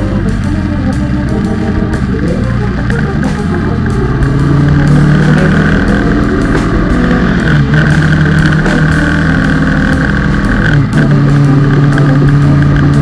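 Rock music with guitar over the steady running of a Kawasaki ER-6F's 650 cc parallel-twin engine under way.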